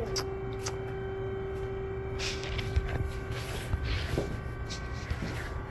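A steady, even hum that stops about three and a half seconds in, over a constant low rumble, with a few soft knocks.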